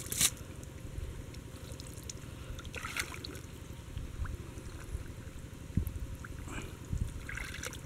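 Shallow muddy water sloshing, with a few short splashes as a person wades and gropes through it by hand for fish, over a steady low rumble.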